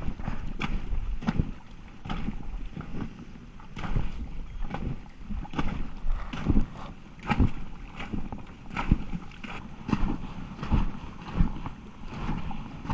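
A trail runner's steady footfalls on a wet, muddy trail, a little more than one a second, over wind and handling rumble on the microphone.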